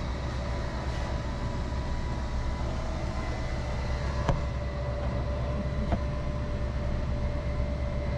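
Motorhome's automatic leveling system running: a steady motor whine over a low hum, stepping up slightly in pitch about three seconds in, with two sharp clicks about a second and a half apart.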